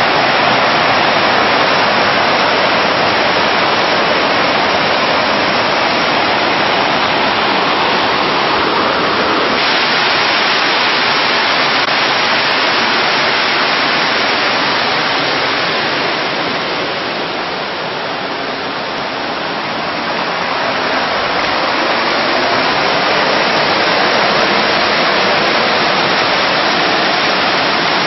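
Artificial rock waterfall pouring into a swimming pool: a loud, steady rush of falling water. It eases slightly for a few seconds about two-thirds of the way through, then comes back up.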